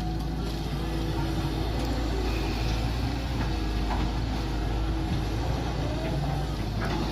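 Mini excavator's engine running steadily under working load, with a hydraulic whine that shifts gently in pitch as it digs, and a couple of short knocks.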